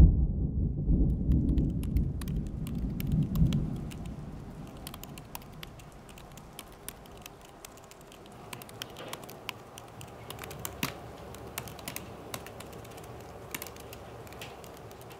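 Long manicured fingernails typing on a laptop keyboard: quick, irregular clicks and clacks of nails and keys. It opens with a loud low rumble that fades away over the first four seconds.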